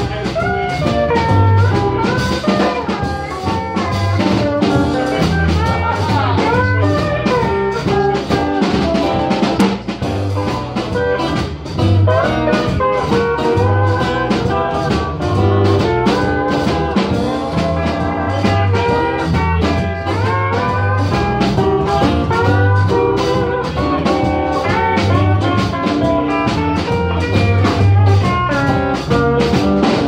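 Live acoustic band music: an Ibanez PCBE-12 acoustic bass, played through a Fender Rumble 100 bass amp, lays down repeating low notes under strummed acoustic guitar, with a steady rhythmic pulse throughout.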